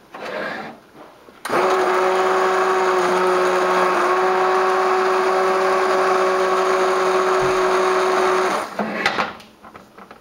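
Handheld immersion blender running in a stainless steel pot, puréeing cooked broccoli and potato soup. The motor starts about a second and a half in, runs at a steady pitch for about seven seconds, then cuts off, and a few clatters follow.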